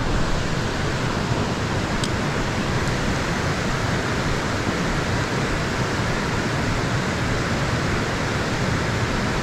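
Steady rush of river water spilling over a low weir, an even, unbroken noise.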